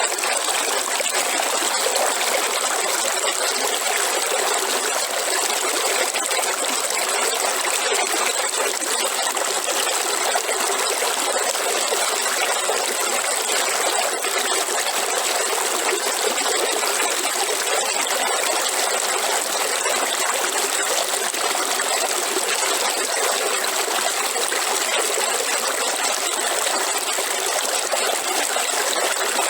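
River water flowing and trickling steadily, a constant rushing babble with no breaks.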